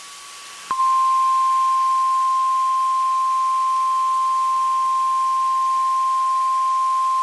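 NOAA Weather Radio warning alarm tone, a single steady high-pitched tone near 1050 Hz that comes on sharply about a second in after faint radio hiss, signalling that an alert message follows.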